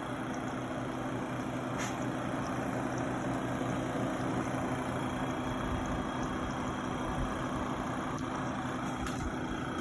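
Rebuilt 1930s Westinghouse refrigerator compressor running steadily on test, with its cooling fan, giving an even hum.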